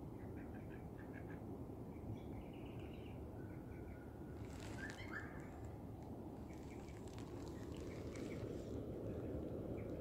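Birds chirping in short repeated calls, with one sharper call about halfway through, over a steady low background rumble.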